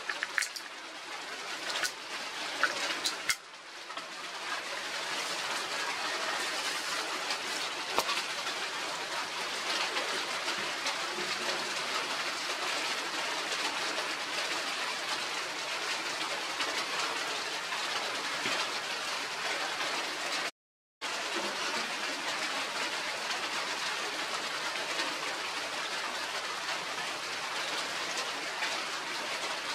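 Steady rushing hiss, with a few sharp clicks in the first few seconds; it cuts out completely for about half a second roughly two-thirds of the way through.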